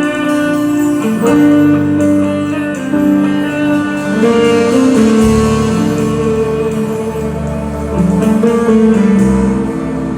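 A band plays an instrumental passage of a song, with a guitar carrying the melody in held, gliding notes over a bass line.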